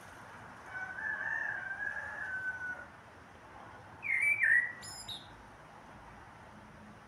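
Common blackbird singing. A low, fluty warbled phrase lasts about two seconds, and after a short pause comes a louder, high-pitched twittering flourish.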